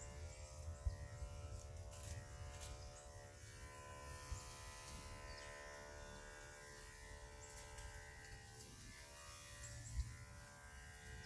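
Electric dog-grooming tool's motor running with a steady whine, with a few sharp knocks over it, the loudest about ten seconds in.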